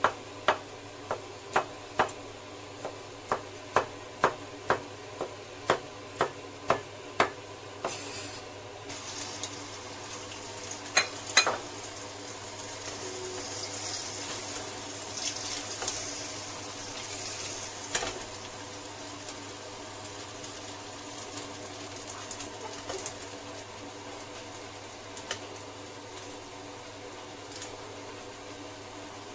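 Cleaver chopping on a cutting board, about two strokes a second for the first seven seconds. Then a few clinks of metal against a wok, and beaten egg sizzling in the hot wok over a gas flame, loudest for a few seconds and then quieter.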